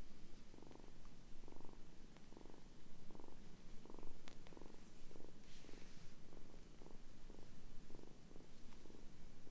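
Kitten purring while being petted, in an even rhythm of about two pulses a second.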